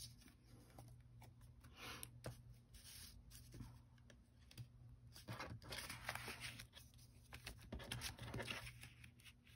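Faint rustling of paper and cardstock being handled and pressed into place, with a few light taps.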